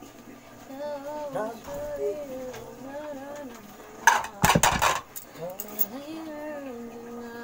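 A woman's voice singing a slow tune softly without clear words, with held notes that glide between pitches. About four seconds in, a loud clatter lasting under a second breaks in, the loudest sound here.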